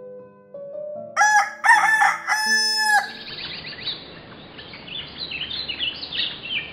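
A rooster crows once, a loud three-part cock-a-doodle-doo starting about a second in, over soft sustained music. As the music ends, small birds twitter in quick short chirps over a steady outdoor hiss, the dawn sound that marks morning.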